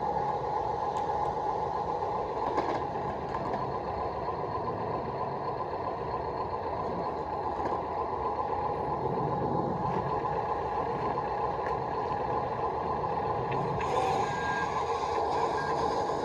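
Top Race TR213 RC wheel loader running: its small electric drive motors and plastic gearboxes give a steady whine. The sound grows harsher about two seconds before the end.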